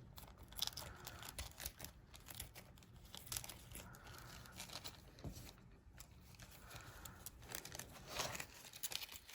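Faint crinkling and rustling with scattered small clicks as lock parts and their packaging are handled.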